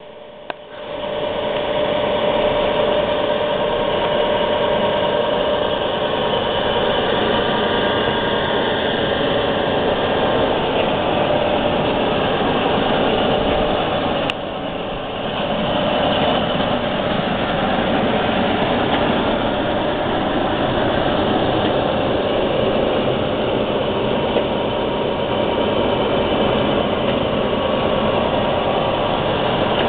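Rubber belt conveyor running, driven by an electric gear motor: a steady mechanical running noise with a hum, coming up to full level over the first second or two, with a brief dip about halfway.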